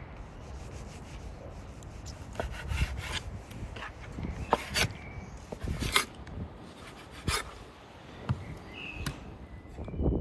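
Kitchen knife slicing lamb testicles on a bamboo cutting board: the blade cuts through and knocks against the wood in irregular taps, with several sharper knocks past the middle.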